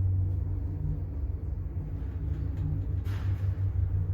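Schindler passenger lift car travelling upward: a steady low hum of the lift's drive and ride, heard from inside the car, with a brief hiss about three seconds in.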